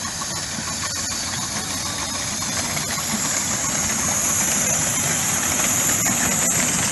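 Miniature live-steam locomotive running past, a steady high hiss with its working noise, growing louder as it draws near.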